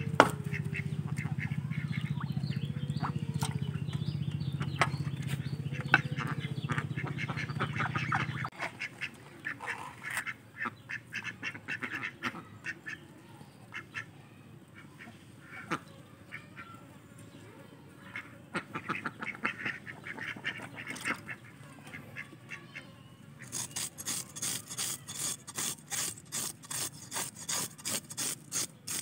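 Domestic ducks quacking on and off, over a steady low hum that cuts off about eight seconds in. Near the end, a knife scrapes scales off a sole fish in quick, even strokes, about five a second.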